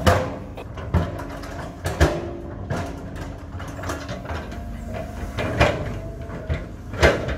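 Cat 320 hydraulic excavator running as it works its boom and bucket, with repeated sharp clanks and knocks. The knocks come about once a second at first, then twice more near the end.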